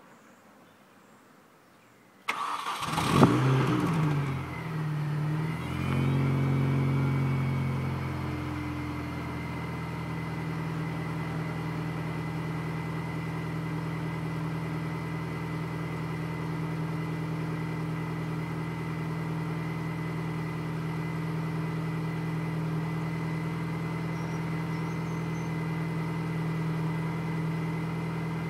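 Mini Cooper S engine on its stock exhaust, cold-started about two seconds in: a brief crank, a flare of revs as it catches, then settling by about eight seconds into a steady fast cold idle.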